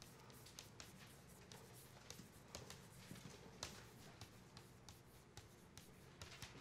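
Faint chalk tapping and scratching on a blackboard as words are written, in short irregular strokes.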